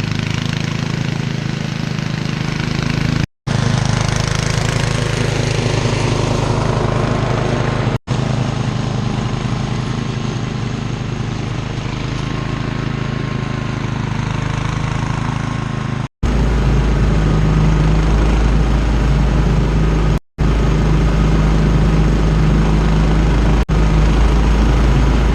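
Riding lawn mower's engine running steadily while mowing, heard in several spliced clips with abrupt brief dropouts between them; in the later clips the drone is louder and deeper.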